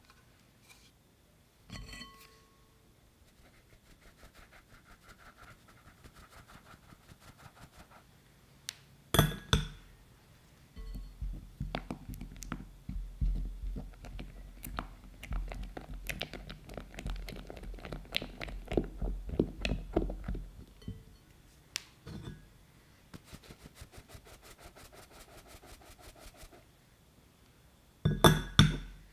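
A fine mesh sieve shaken lightly as cocoa powder sifts through into a glass bowl, then a silicone spatula stirring and scraping the cocoa into sweetened condensed milk, a thick mix that scrapes in a fast, uneven rhythm. Sharp knocks on the glass about nine seconds in and again near the end.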